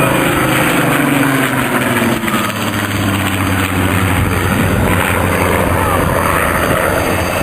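Aircraft engine passing at an airshow display, its engine tones dropping in pitch over the first couple of seconds as it goes by, then running steadily at a lower pitch.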